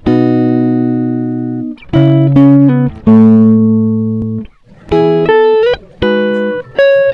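Background music: plucked guitar-like notes picked out one at a time, each ringing and fading, in short phrases with brief pauses between them.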